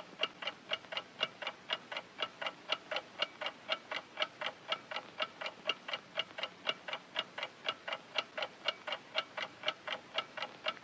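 Clock ticking steadily at about four ticks a second, each tick short and sharp.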